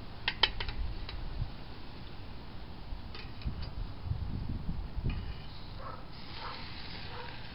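A few sharp, light clicks close together about half a second in, and fainter ticks about three seconds in, over faint outdoor background noise with a few low rumbles.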